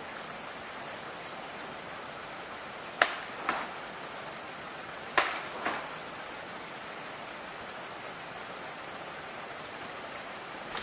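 Steady outdoor background hiss with a faint thin high tone, broken twice by sharp knocks, about three and five seconds in. Each is a loud strike followed by a softer one about half a second later.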